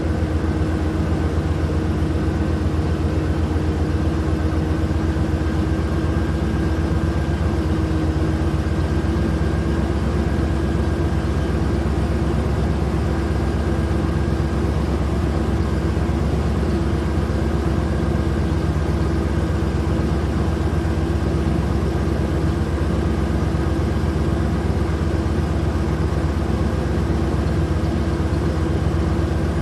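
Steady engine-like hum that never changes speed: a constant low drone with a held tone above it, like a vehicle engine running at a fixed speed.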